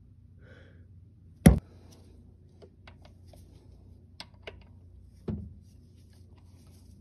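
Handling knocks from a cordless power tool being fitted up under a car: one sharp, loud clack about a second and a half in, a scatter of light clicks and taps, and a duller knock about five seconds in. The tool is not running.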